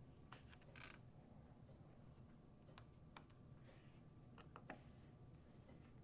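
Faint, scattered small clicks and a few brief scrapes of a screwdriver working on the bottom-panel screws of a Dell Inspiron laptop, over a low steady hum.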